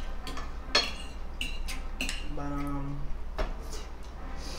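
Tableware clinking: salad tongs and forks tapping against plates and bowls in a series of sharp clicks, the loudest about three-quarters of a second in. A short hummed "mm" from one of the diners comes about two and a half seconds in.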